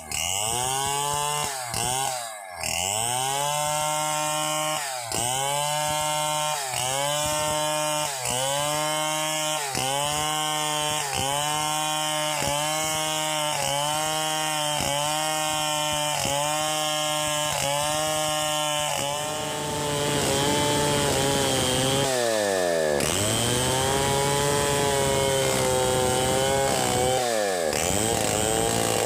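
Two-stroke chainsaw ripping a log lengthwise into boards, its engine pitch dipping and recovering a little more than once a second. About two-thirds in it gets louder and runs steady at high revs, with two deep dips near the end.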